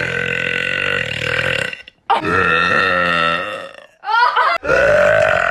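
A young woman burping in a row of big, drawn-out burps, each lasting about two seconds: one trails off near the start, another comes about two seconds in with a wavering pitch, and a third starts near the end. A short rising sound comes just before the last burp.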